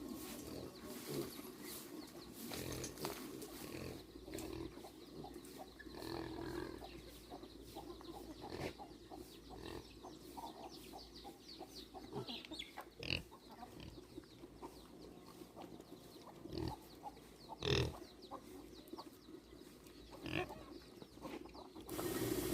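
Pigs grunting, with several sharp knocks scattered through, the loudest a little before the end.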